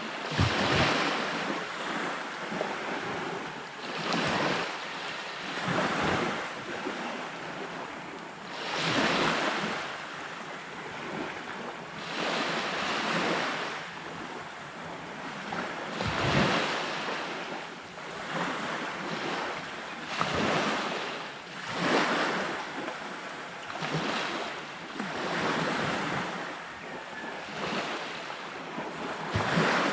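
Surf washing onto a beach, the waves swelling and falling away every few seconds, with wind blowing across the microphone.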